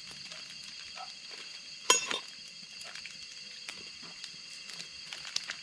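Night chorus of frogs and insects, a steady high-pitched shrill with scattered calls. One sharp clink stands out about two seconds in.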